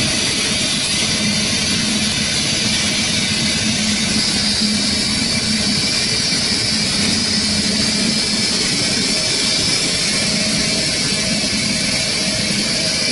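Four-head CNC wood-turning lathe running, its spindles spinning wooden blanks while the cutters shave them: a steady machine hum under the dense noise of wood being cut.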